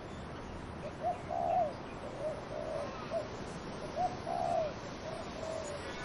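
A dove cooing: a phrase of several soft coos, heard twice, over a steady background of wind in trees.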